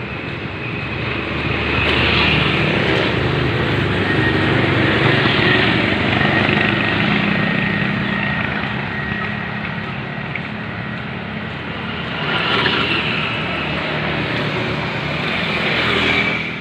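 Motorcycles and scooters riding past on the street, engines running, swelling as riders pass close about two seconds in and again near the end.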